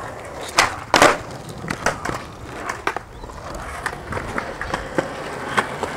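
Skateboard rolling on a concrete sidewalk, with two loud clacks from the board about a second in and lighter clicks as the wheels cross the slab joints.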